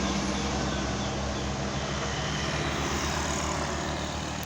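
Medium tour bus's diesel engine running as it passes through the bend, a low steady drone that slowly fades as the bus moves away.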